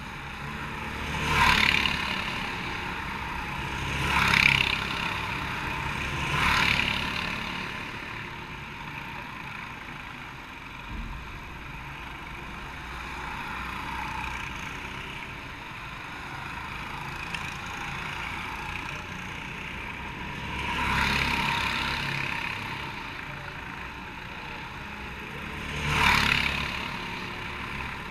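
Go-kart engines running, with a steady low hum and five short, loud swells of noise, like karts passing close by.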